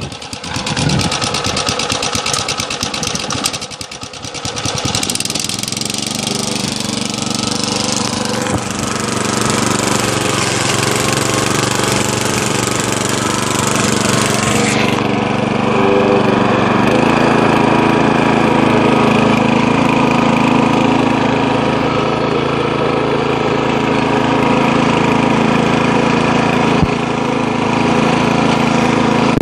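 Briggs & Stratton 208 cc single-cylinder engine on a Craftsman tiller running just after a cold start. It runs unevenly for the first few seconds, dipping briefly, then settles into a steady run, its tone changing about halfway through.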